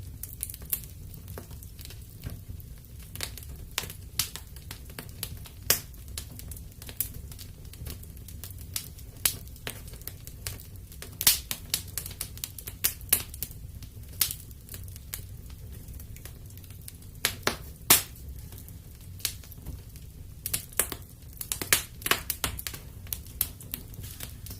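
Wood fire burning in a fireplace, crackling with irregular sharp pops and snaps over a low steady rumble. The pops come thicker near the end.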